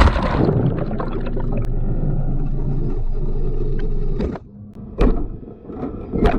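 Wind buffeting the microphone as a loud low rumble that drops off sharply about four seconds in, followed by a few short knocks.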